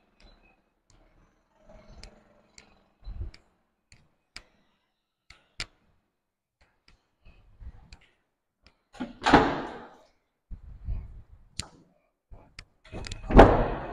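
Footsteps and light clicks on a tiled floor, then a wooden interior door being pushed and knocked, with two louder thumps about four seconds apart near the end.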